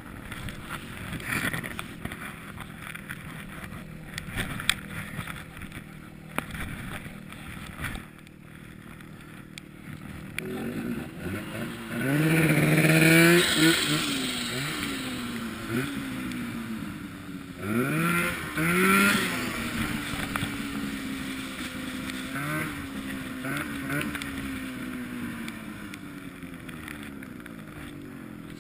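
Snowmobile engine idling low, then revving up hard about twelve seconds in as the sled powers through deep powder snow, revving again a few seconds later, then running steadily with its pitch dropping near the end as it slows.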